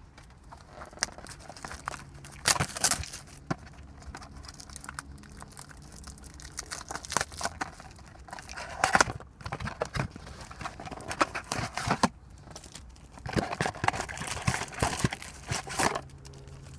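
Trading-card packaging being torn open: irregular crinkling and tearing of wrapper and box, in scattered spells that are busiest a few seconds before the end.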